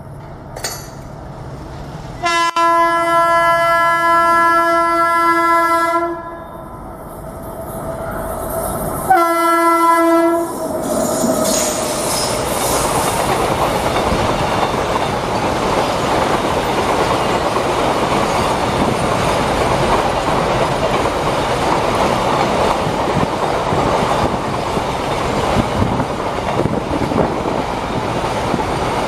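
Indian Railways electric locomotive's horn sounds twice: a long steady blast of about four seconds, then a short one about three seconds later. After that a double-stack container freight train rolls past with a steady, loud noise of wheels on rail.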